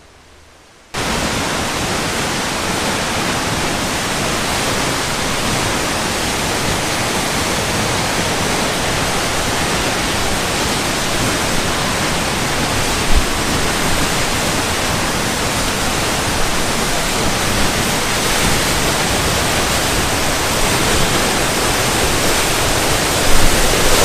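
Wildensteiner waterfall, a very high mountain waterfall, heard close up as a loud, steady rush of falling water that cuts in abruptly about a second in.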